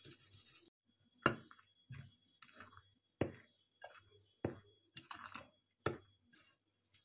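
A metal utensil stirring flour in a glass bowl, clinking and knocking against the glass in irregular sharp taps that begin about a second in.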